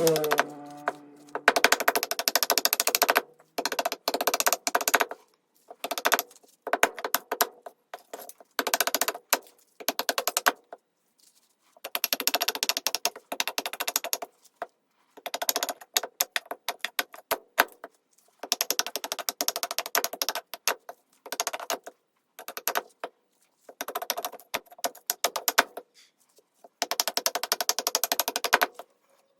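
A knife shaving hard fatwood in repeated strokes, each a rapid crackling scrape lasting one to three seconds, with short pauses between strokes.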